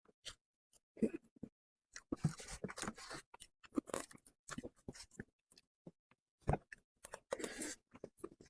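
Close-miked eating sounds of a person chewing soft cream cake: wet mouth clicks and smacks, with two longer, denser stretches of chewing about two and seven seconds in.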